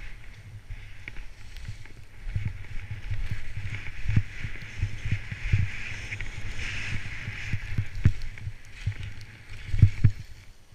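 Skis sliding through deep powder snow with a steady hiss, over an uneven low rumble and dull thumps as the skier rides over the snow; the thumps are strongest near the end.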